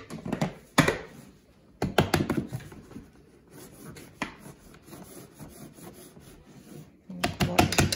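Plastic parts of a WonderMill electric grain mill being handled as the flour canister is taken off: sharp clicks and knocks with rubbing, in clusters at the start, around two seconds in and near the end, with a quieter stretch of light scraping between.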